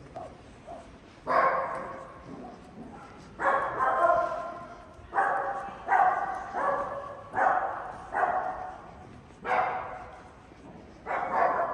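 A dog barking repeatedly, about ten loud barks at irregular intervals roughly a second apart.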